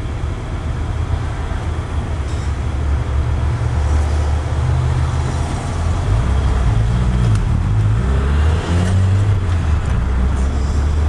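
Small car's engine heard from inside the cabin, pulling away from a stop and accelerating; its low drone steps up and down in pitch as it goes through the gears, over road noise.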